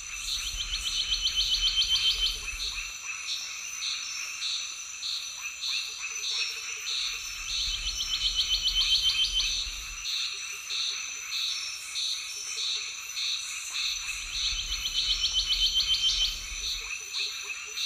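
Tropical forest chorus of frogs and insects: a steady high insect whine under rapid pulsing calls, which swell three times at roughly seven-second intervals.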